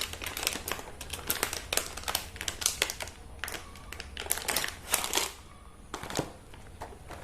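Plastic packaging crinkling and rustling, with quick small clicks and taps, as small items are unpacked and handled by hand.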